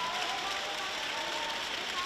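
Spectators in a sports hall applauding and cheering in a steady wash of crowd noise, with music playing under it.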